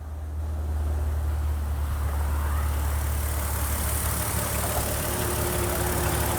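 Car engine idling steadily, a low even hum with some hiss above it.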